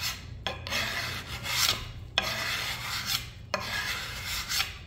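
Steel bowyer's scraper drawn along a wooden bow stave in four long scraping strokes, taking off thick shavings.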